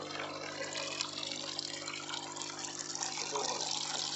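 Water splashing steadily from a PVC pipe outlet into a hydroponic reservoir, the falling stream aerating the nutrient solution, over a low steady hum from the circulating pump motor.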